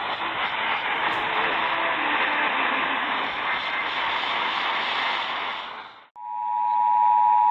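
Radio static hiss that fades out about six seconds in. It is followed by the Emergency Alert System two-tone attention signal: two steady tones close in pitch sounding together, announcing the next alert.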